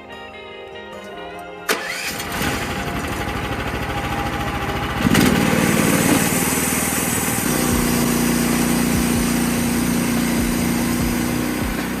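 Music, then about two seconds in an engine starts with a sudden burst, grows louder, and from about seven seconds in settles into a steady run.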